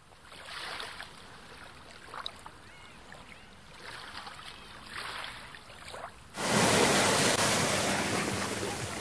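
Sea water washing in soft swells, then about six seconds in a sudden, much louder rush of churning, foaming water that slowly eases.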